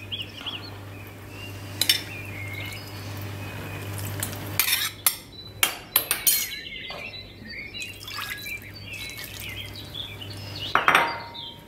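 A metal spoon clinking and scraping against a bowl and a stainless steel pot as tomato paste is spooned over stuffed vine leaf rolls. A few sharp clinks are scattered through it, the loudest near the end.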